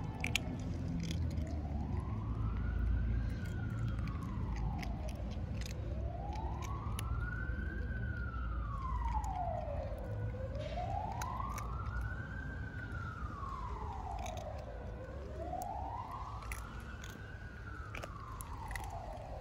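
Cats crunching dry kibble, a scatter of short sharp crunches, over a low rumble. Behind it an emergency-vehicle siren wails slowly up and down, about four rises and falls.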